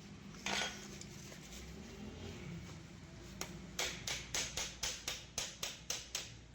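A hammer striking metal: one knock, then from about four seconds in a quick even run of sharp taps, about four a second.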